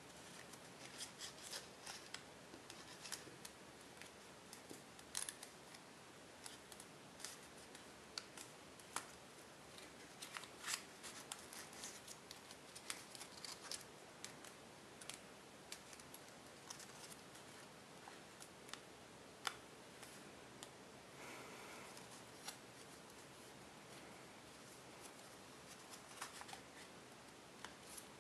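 Tissue foil paper crinkling and creasing under the fingers as it is folded, as scattered faint crackles and clicks over a quiet hiss.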